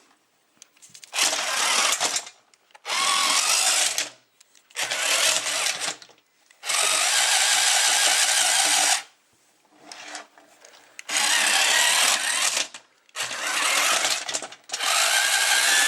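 Small electric drive motor and gears of a Thinkway remote-control Buzz Lightyear toy whirring in repeated bursts of one to two seconds, stopping and starting again about eight times as it is driven by remote control.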